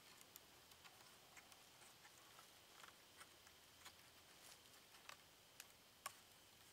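Near silence with faint, scattered small clicks and ticks of hands working cord lashing around wooden poles, the sharpest one about six seconds in.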